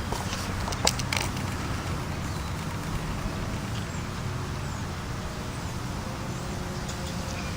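Vintage four-bladed Montgomery Ward Tru-Cold box fan (made by Lasko) running steadily with a low hum. The owner is not liking how it sounds and suspects the breeze is partly to blame. A few light clicks about a second in.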